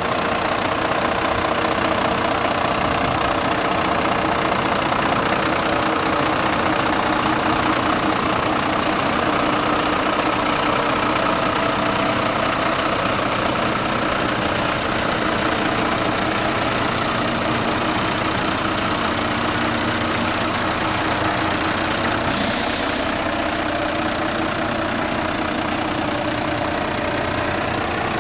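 Iveco Trakker 360 concrete mixer truck's diesel engine idling steadily, with a short hiss about 22 seconds in.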